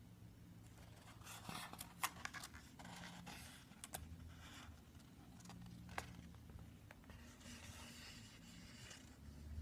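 Faint scraping and rustling in short bursts, with a few sharp clicks: the loudest about two seconds in, another about six seconds in.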